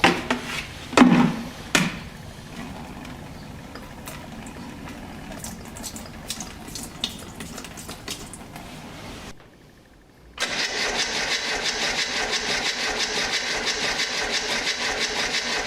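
Starter motor cranking the Formula Ford's engine over steadily for several seconds without it catching, with the fuel pipe off the carburettor to check the mechanical fuel pump's delivery. A few knocks come first, and the cranking begins a little past halfway through.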